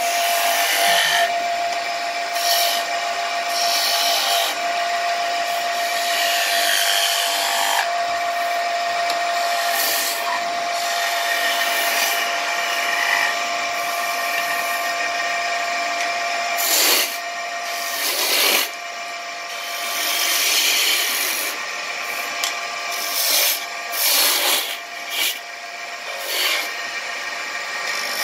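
Wood lathe running with a steady whine while a hand-held turning tool cuts into the spinning wooden blank, giving a continuous hissing scrape. In the second half the cutting comes as several short separate strokes.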